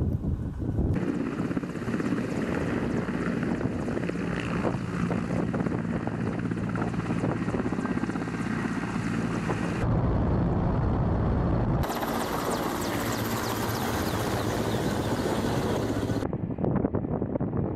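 Mi-8 helicopter's rotor and twin turboshaft engines running in flight: a steady, dense drone. Its character changes abruptly several times as the footage cuts between shots.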